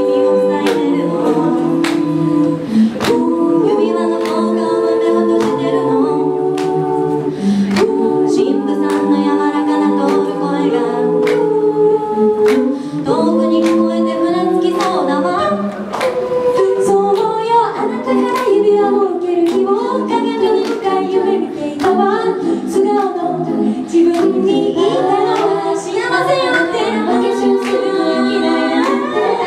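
A five-woman a cappella group singing a song in close harmony into microphones, with a steady beat of sharp percussive clicks underneath.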